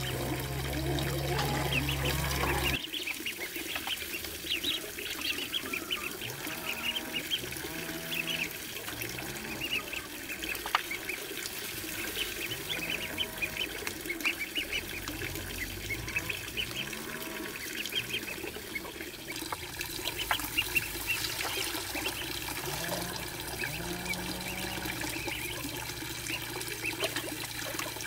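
A flock of goslings peeping continuously, many short high chirps overlapping while they feed, over a steady sound of water running into a small pond. A low steady hum under the first few seconds stops abruptly.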